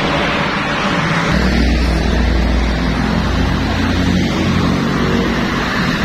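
Highway traffic noise: tyres and engines on a busy multi-lane road. A heavy vehicle's deep engine rumble passes from about a second in until about five seconds in.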